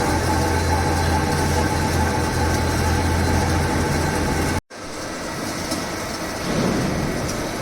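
CNC vertical milling machine running, a steady low hum with a steady whine above it. About four and a half seconds in it cuts off abruptly, and a quieter, rougher machining sound follows.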